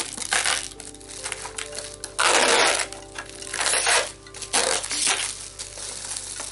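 Plastic film wrapping being pulled and torn off a cardboard box, in several crinkling rustles; the longest and loudest starts about two seconds in, with shorter ones near four and five seconds.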